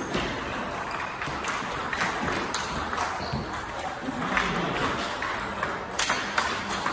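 Table tennis ball in play: sharp clicks of the celluloid/plastic ball striking paddles and the table, coming irregularly about every half second, with a faint murmur of voices behind.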